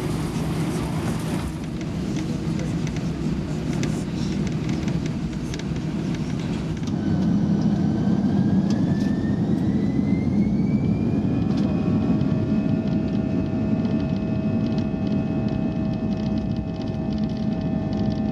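Airbus A320's jet engines heard from inside the cabin, a steady low rumble. About seven seconds in, a whine rises in pitch for some four seconds and then holds as a steady high tone, louder than before, as the engines spool up toward takeoff thrust.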